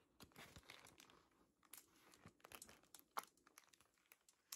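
Stickers and their plastic-backed sheets being crinkled and handled: soft, uneven crackling with sharp little clicks, one louder click about three seconds in.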